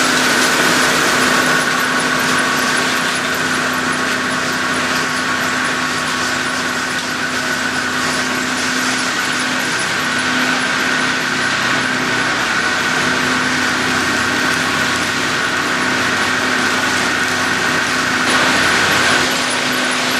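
Rotochopper EC-156 horizontal grinder, driven by a 300-hp three-phase electric motor, running steadily: a constant hum with a steady higher whine and machine noise over it.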